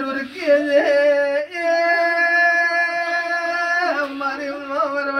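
A man singing a Marwari regdi folk song. His voice ornaments its line at first, holds one long high note through the middle, then falls away and stops at the end.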